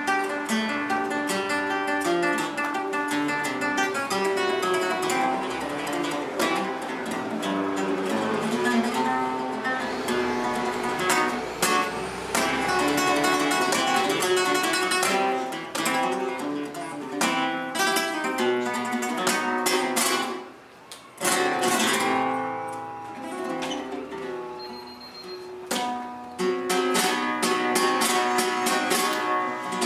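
Flamenco acoustic guitar playing live, with hard strummed chords and quick picked runs. It breaks off briefly about two-thirds of the way through, then starts again.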